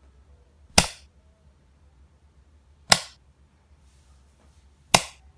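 Light switch being flipped, three sharp clicks about two seconds apart.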